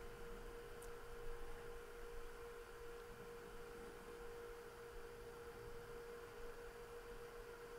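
Faint, steady, pure hum a little below 500 Hz over low background hiss, with no other sound.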